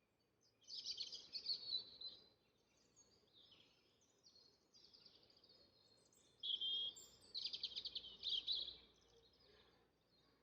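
Songbirds singing: two loud phrases of rapid high trills, one about a second in and another from about six seconds in, with fainter calls between.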